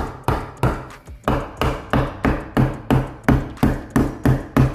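Hammer blows on a snug-cut wooden 2x4 block, knocking it into place between wall studs: a steady run of sharp strikes, about three a second.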